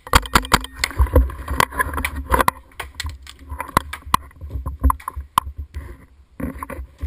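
Paintball markers firing: a fast, irregular string of sharp pops and cracks, some close and loud, over a low rumble of handling noise.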